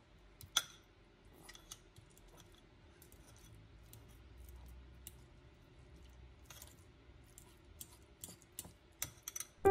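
Fork mashing avocado in a ceramic bowl: faint, irregular clicks and taps of the fork against the bowl, with a sharper tap about half a second in and a quick run of clicks near the end.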